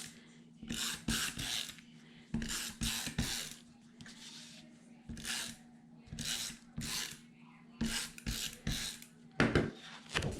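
Paper being handled and rubbed against the work surface, about a dozen short rasping strokes at irregular intervals, over a faint steady hum.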